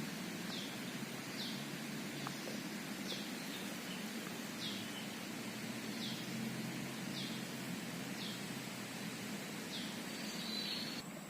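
A bird calling over and over in short falling chirps, about one a second, over the steady rush of flowing water.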